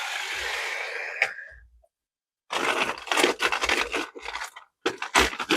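Foley props scraping and rolling on a surface. A continuous stretch of about two seconds ends in a sharp click, and after a brief pause comes a run of short, quick bursts of the same kind.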